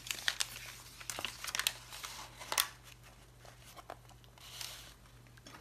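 Paper being handled: crinkling and rustling of tissue paper and a small scrap of brown paper bag as the page is turned and pressed down, with many quick ticks and rustles in the first half, then sparser ones and a short soft rustle near the end.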